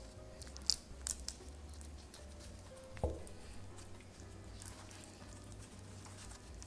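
Fingers pleating and pinching soft yeast dough closed around a ground pork filling to shape a nikuman bun: quiet squishy handling with a few small clicks in the first second or so and a soft knock about three seconds in.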